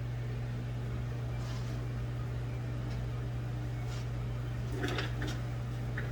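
Steady low machine hum, like a fan or similar appliance running, with a few short light clicks about five seconds in and again near the end.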